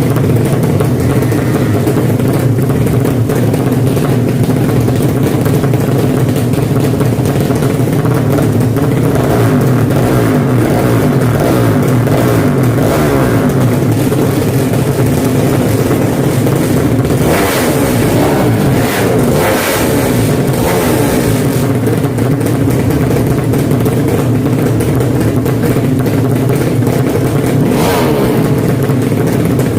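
Drag-racing motorcycle engines running and revving in a continuous loud drone, with a few short, sharper bursts a little past the middle.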